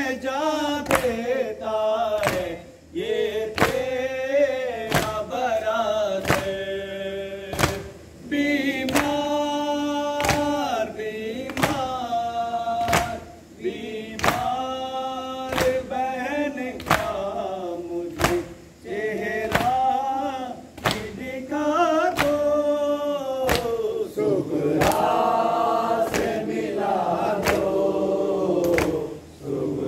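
A group of men chanting a nauha, a Muharram lament, line after line. Steady hand-on-chest slaps (matam) keep time, about three beats every two seconds.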